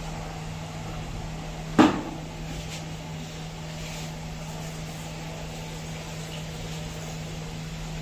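Samsung 8 kg top-load washing machine running its wash cycle: a steady motor hum as the load churns, with one sharp knock about two seconds in.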